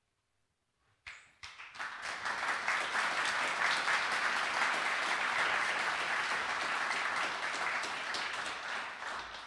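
Audience applauding. The clapping starts about a second in, quickly builds to a steady level, and begins to fade near the end.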